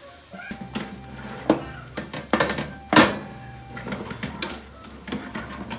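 Wire-mesh air fryer basket knocking and scraping against the oven's rack rails as it is slid out, a run of sharp metallic clicks and clatters with the loudest knock about three seconds in.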